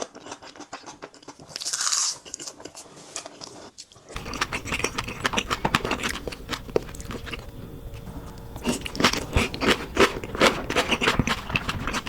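Close-miked eating sounds of salmon sashimi being bitten and chewed: many small wet clicks and smacks. A brief hiss about two seconds in, and a sudden cut at about four seconds to louder, denser chewing over a low hum.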